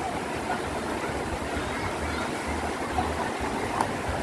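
Shallow river water rushing steadily over rocks in a small rapid, with a low, uneven rumble underneath.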